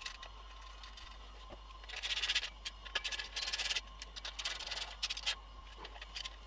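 A small hand ratchet tightening a bolt on an exhaust tip's valve bracket, giving three short bursts of rasping metal noise starting about two seconds in.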